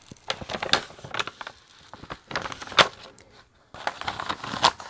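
A rolled diamond painting canvas with its printed release paper being unrolled and flattened by hand, the paper and coated surface crinkling in scattered, irregular crackles. The sharpest crackles come near three seconds in and again near the end.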